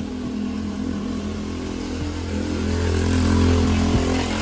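An engine running steadily, growing louder about three seconds in and easing off near the end.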